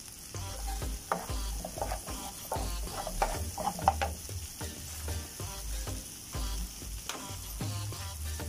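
Chopped onions, tomatoes and garlic sizzling in butter in a non-stick frying pan, stirred with a wooden slotted spatula. The spatula scrapes and taps the pan over and over, most busily a few seconds in.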